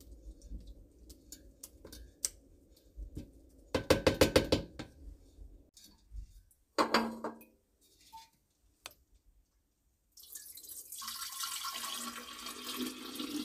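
Stainless steel kitchenware clattering: a metal sieve and bowl knocked and set down twice with a ringing clatter, followed from about ten seconds in by juice poured in a steady stream from a steel bowl into a glass pitcher.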